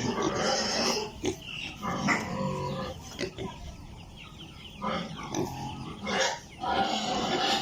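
A group of piglets calling over one another, busy at first, thinning out in the middle and swelling again near the end.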